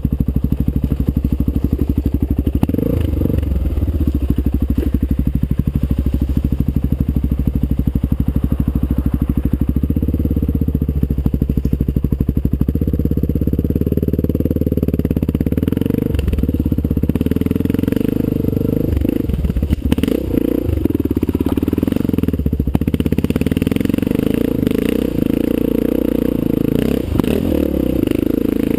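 Honda XR600's air-cooled single-cylinder four-stroke engine running while riding, its pitch rising and falling with the throttle, with a few knocks.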